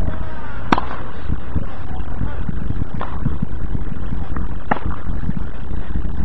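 Tennis racket strokes in a rally: a sharp crack of ball on strings under a second in, a fainter hit at about three seconds from the far player, and another sharp crack near five seconds, over a steady low rumble.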